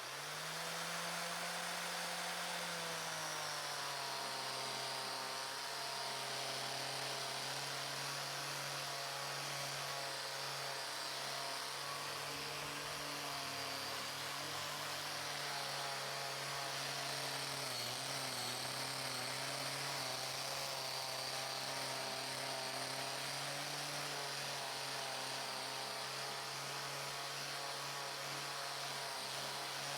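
A small electric power tool's motor running steadily with a constant hum and hiss, its pitch dropping slightly a few seconds in, as when the work is pressed against it.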